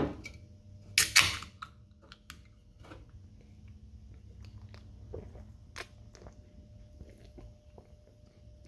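A beer can opened by its pull tab: a click, then about a second in a loud crack and short fizz as it opens, followed by a few faint clicks of handling.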